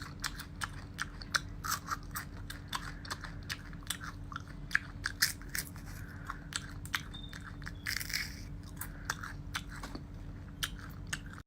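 Close-miked crunching and chewing of a crisp deep-fried centipede: many irregular sharp crackles as it is bitten and chewed.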